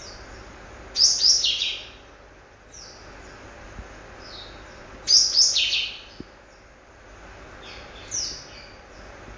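A pet bird giving its strange call, rendered as "wik wik, cia cia". It comes in three bursts of quick, falling chirps: about a second in, again about five seconds in, and a short one near the end.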